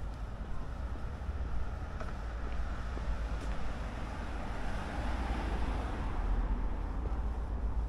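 City street traffic: a steady low rumble of traffic, with one vehicle passing that swells and fades through the middle.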